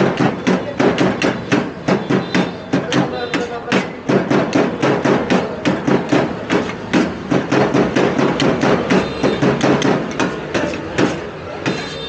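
Metal spatula rapidly chopping chicken shawarma meat on a steel tray: a steady clatter of about four strikes a second, easing off near the end.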